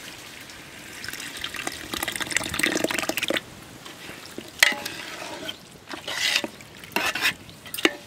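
A long metal spoon stirring chicken masala and freshly poured curd in a large metal pot: wet stirring and scraping, busiest in the first few seconds, then a few sharp clinks of the spoon against the pot, one ringing briefly.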